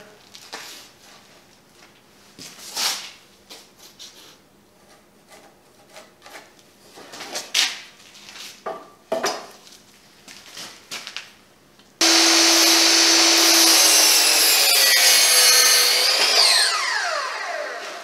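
Knocks and clunks of a wooden board being handled on a saw table. About twelve seconds in, a Ridgid sliding compound miter saw starts suddenly and runs loud through a crosscut in the board, then winds down with a falling whine near the end.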